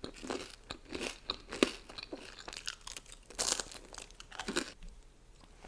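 Close-miked eating: crispy fried chicken being bitten and chewed with repeated crunches, which die away near the end.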